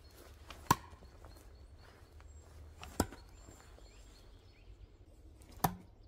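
Thrown butter knives hitting a wooden log target: three sharp thunks, about two and a half seconds apart, the first with a short metallic ring.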